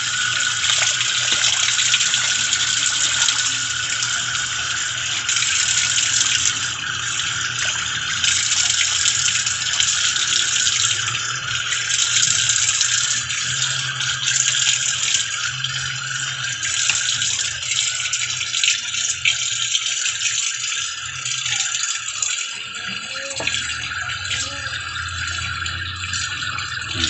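Water running steadily from a tap, an even rushing noise with a faint low hum beneath it.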